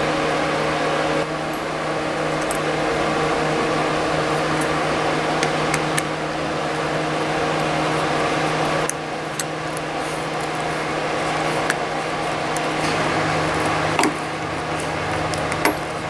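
A steady mechanical hum with a fixed low tone, and a few sharp clicks in the second half.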